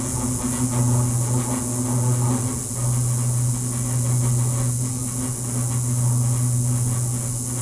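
Sustained electrical buzz: a steady low hum under a constant high hiss, like a live electric arc or charged current, with only a slight dip about two and a half seconds in.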